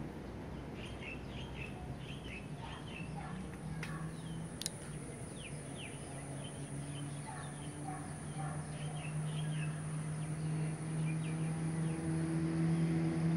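Birds chirping in short, repeated calls. Under them a steady low hum grows louder through the second half, and a thin high steady tone runs throughout.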